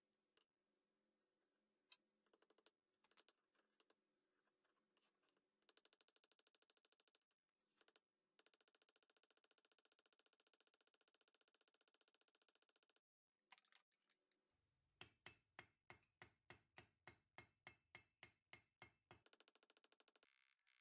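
Faint hammer taps on the pin through the axe head's eye as it sits on a steel anvil, peening the pin to fix the head to the handle. Scattered light taps, then a long fast run of tapping, and near the end a series of heavier blows at about four a second.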